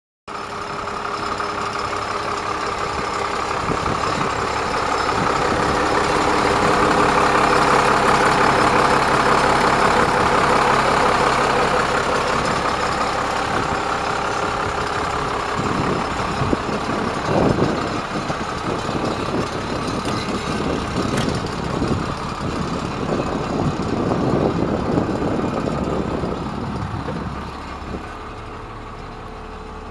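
Engine of a 1995 Ford school bus idling steadily, with irregular rumbling surges over it in the second half.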